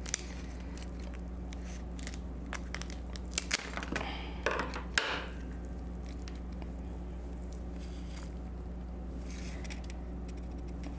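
King crab leg shell cracking and crackling as it is broken open by hand and the meat pulled out, in a string of sharp cracks over the first five seconds. A steady low hum runs underneath.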